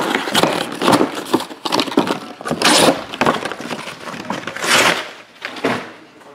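Trading-card pack wrappers being torn open and crinkled by hand, with cards handled in between. It comes as a run of loud rustling, tearing bursts, the two strongest near the middle and about two-thirds through.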